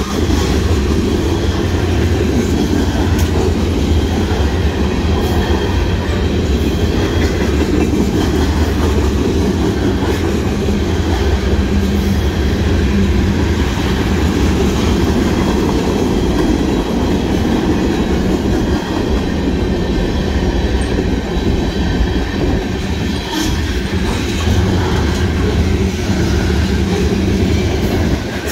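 Union Pacific mixed freight train's tank cars and covered hopper cars rolling past: a steady, loud rumble of steel wheels on rail, with an occasional click of wheels over the rail joints.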